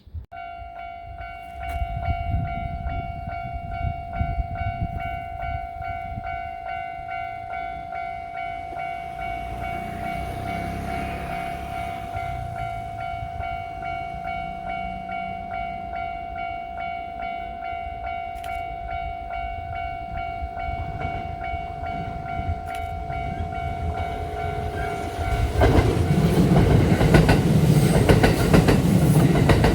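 Japanese level-crossing warning bell starts ringing just after the start and keeps up a steady electronic tone while an approaching train rumbles closer. About 25 seconds in, a Kintetsu electric train passes over the crossing, loud with wheel-on-rail clatter.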